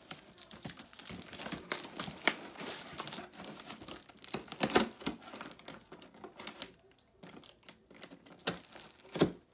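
Packing tape on a cardboard box being cut and pulled at: irregular crinkling and crackling with scattered sharp clicks, a few louder. The tape is hard to get through.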